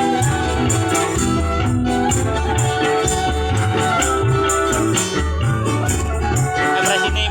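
Music played through a sound system during a sound check: a steady beat with a pulsing bass line, held keyboard-like notes, and regular high percussion strokes.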